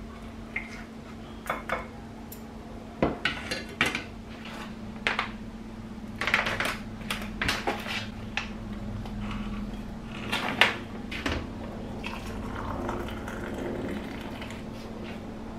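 Crockery and glassware being handled on a stone countertop: a series of separate clinks and knocks of a plate and a small glass teapot. Near the end comes the softer, steady sound of hot water pouring from an electric kettle into the glass teapot over dried chrysanthemum flowers. A steady low hum runs underneath.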